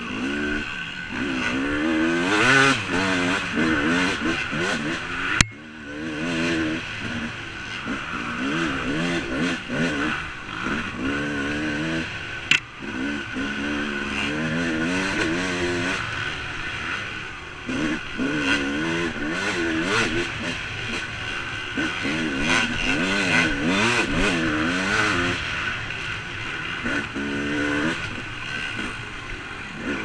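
Dirt bike engine revving up and down over and over as the rider rolls the throttle on and off and shifts. Two sharp knocks are heard, about five and twelve seconds in.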